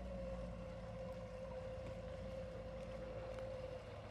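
An engine drones steadily under a light hiss, its tone sinking slightly in pitch and dying away just before the end.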